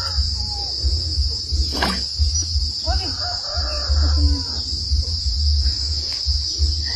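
Insects droning in one steady high-pitched note, over a low, fluctuating rumble, with a single sharp click about two seconds in.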